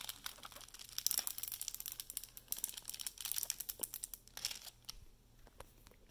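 Diamond painting canvas and its clear plastic cover film crinkling as it is handled, a dense run of small crackles for about three seconds that thins out to a few faint ones near the end.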